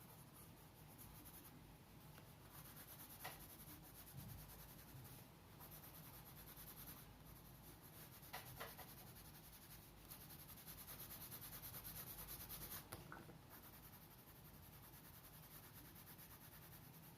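Faint scratching of coloured pencils on paper as they shade, swelling and fading, with a few light taps.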